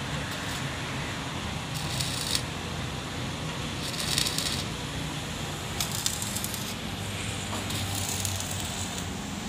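Stick arc welding on a truck's steel rear frame: the electrode crackles and hisses in several short bursts a couple of seconds apart, over a steady low hum.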